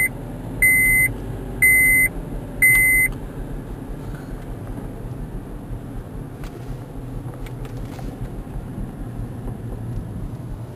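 A high electronic beep repeating about once a second, four times in all, stopping about three seconds in, over a steady low rumble.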